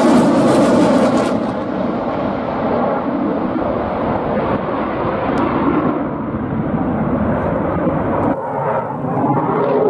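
Eurofighter Typhoon's twin EJ200 turbofans in afterburner: a loud jet roar whose hiss fades after about a second and a half, leaving a deep rumble as the jet climbs away, with a brief dip in the rumble near the end.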